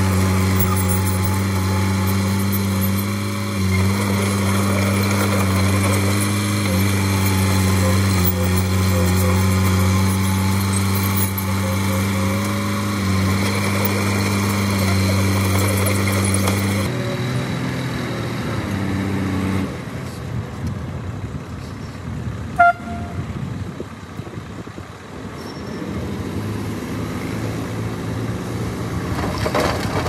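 Heavy diesel engine of earthmoving machinery running steadily at an even pitch. About halfway through, the sound changes abruptly to a quieter, rougher engine sound, with one sharp click a few seconds later.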